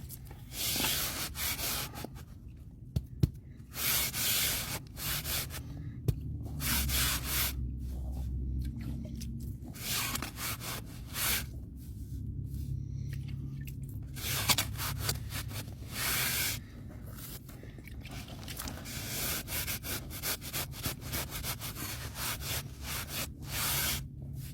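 Repeated scraping strokes, a tool worked over a rough surface, in irregular bursts of about half a second to a second each. There are two sharp clicks among them.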